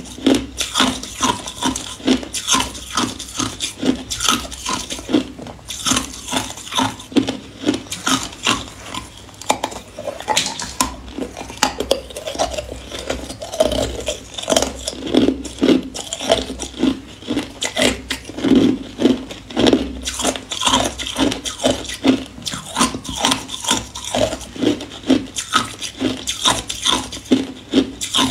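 Hard ice cubes being bitten and chewed: a steady run of crunches and cracks, about two a second.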